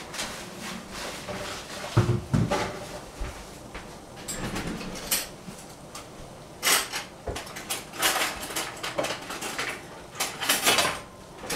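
Metal cookware being handled on a gas stovetop: a steel pot lid and pans knocking and clinking in several short, separate clatters.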